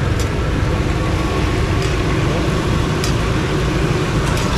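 Steady, loud rumble of street traffic and running engines, with a few faint ticks.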